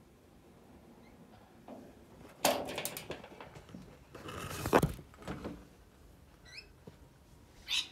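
Sudden knocks and rattling clatter, the loudest a little before five seconds in, like a door or window being moved or handled. A few short, high rising chirps from rainbow lorikeets come about six and a half seconds in.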